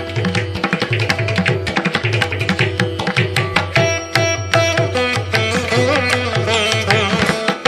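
Indian-style background instrumental music: quick, even hand-drum strokes over a steady drone, with a wavering melody coming in about four seconds in.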